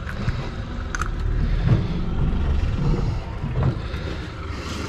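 Low, uneven rumble of wind and water around an open boat, with a few light clicks of handling about a second in and again about three and a half seconds in.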